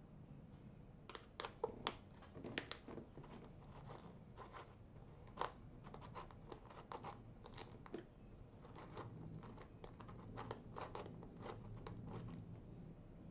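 Faint, irregular clicks and taps of a T-handle hex key turning screws out of the seat's backrest mount, with small knocks from handling the seat.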